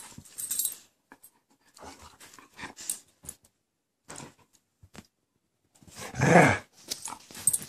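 A dog and a cat play-fighting: scattered short scuffles and soft noises, with a louder, brief dog growl about six seconds in.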